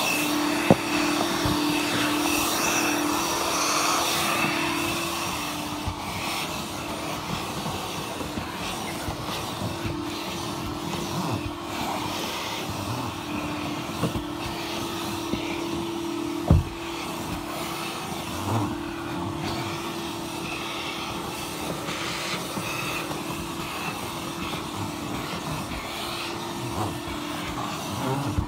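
Car wash vacuum sucking through its hose inside a car while cleaning the floor: a steady hum, with a few sharp knocks of the nozzle against the car, the loudest a little past halfway.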